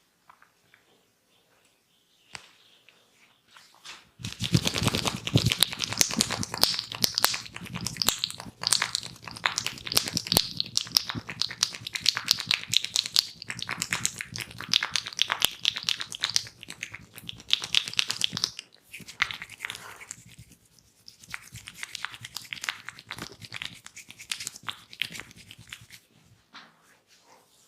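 Close-up, rapid crackling and scratching from a barber working at a client's head. It starts a few seconds in, pauses briefly twice in the second half, and stops shortly before the end.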